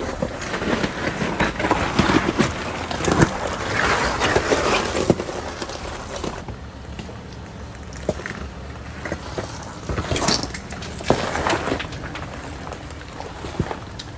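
Toyota 4Runner crawling slowly down a rocky trail: a low vehicle rumble under tyres crunching over rock, with scattered sharp knocks and scrapes, busiest in the first half.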